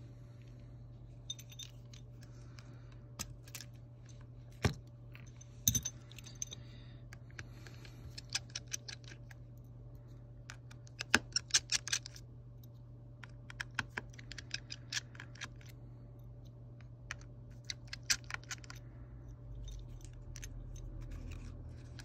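Precision screwdriver clicking and scraping on the tiny screws and metal bracket over the battery connector of an opened iPhone 8, in irregular clusters of small sharp ticks and taps, with a steady low hum underneath.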